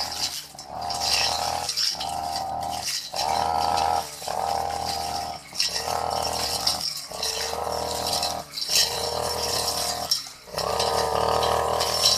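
Brush cutter fitted with a metal blade running at high speed through long grass. Its note breaks and dips every second or so as each sweep cuts into the grass.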